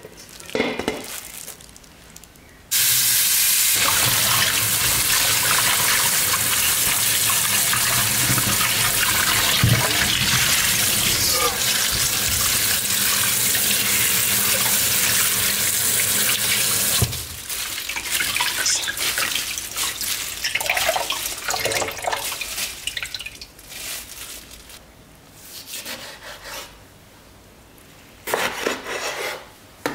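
Kitchen tap running hard into a stainless steel bowl in the sink while cabbage kimchi is rinsed by hand. The water comes on suddenly about three seconds in and cuts off after about fourteen seconds, followed by softer splashing and handling and a few knife strokes on a wooden cutting board near the end.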